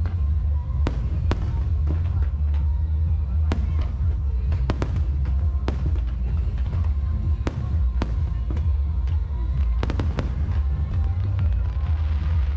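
Aerial fireworks display: sharp bangs and cracks of shells bursting about once or twice a second over a continuous deep rumble of launches and booms. Music plays underneath.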